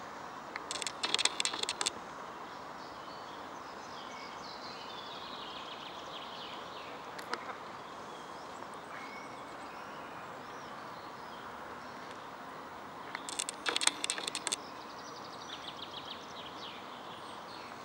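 Birds calling over a steady distant hum: faint chirping throughout, and two loud bursts of rapid, harsh chattering, one about a second in and another about thirteen seconds in.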